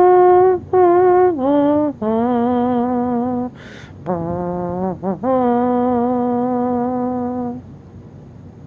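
Closing music: a single melody line of long held notes that waver slightly, with short breaks between them and a brief hiss about halfway through, dying away near the end.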